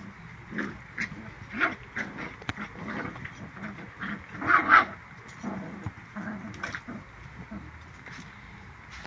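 Six-week-old puppies making short vocal sounds as they play together, an irregular string of brief calls with the loudest and longest about halfway through.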